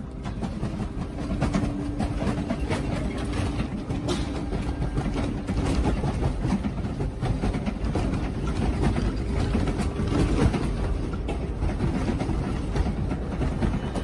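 Earthquake shaking a room: a deep, continuous rumble with a steady clatter of rattling furniture and objects. It builds over the first couple of seconds, then holds.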